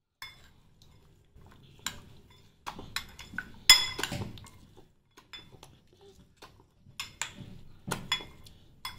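Metal spoon stirring a salad of sprouted green gram and chopped fruit in a glass bowl, clinking irregularly against the glass. The loudest clink comes a little under four seconds in.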